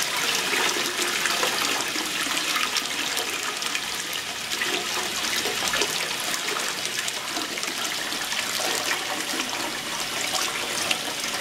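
Water rushing and splashing steadily in an ultrasonic tank, the circulating liquid spilling over the tank's notched overflow weir.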